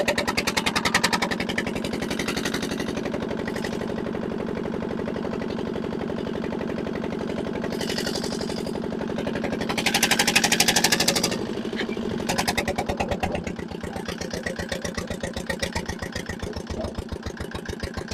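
Benford dumper's diesel engine running with no exhaust fitted, a rapid, even chugging as the dumper is driven along. It grows louder for a second or so about ten seconds in, then eases a little as the dumper moves off.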